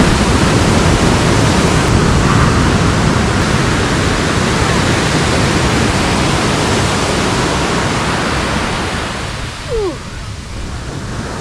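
Ocean surf breaking and washing up a sandy beach: a loud, steady rush of waves that eases a little near the end.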